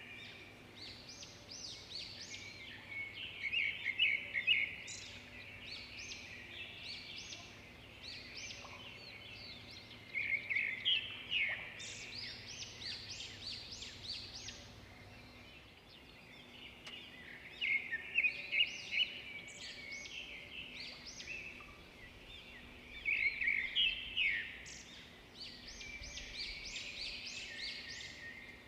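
Small songbirds singing, with clusters of quick, high chirps and trills every few seconds over a faint steady background.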